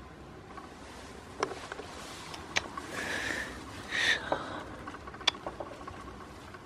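Scattered light knocks and clicks with rustling, and two short breathy hissing noises a little past halfway.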